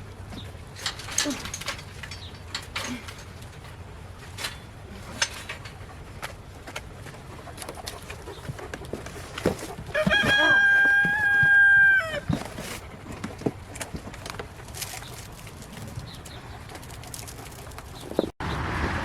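A rooster crows once, about ten seconds in: a single long call of about two seconds, held at a steady pitch. Scattered light knocks and clicks sound before and after it.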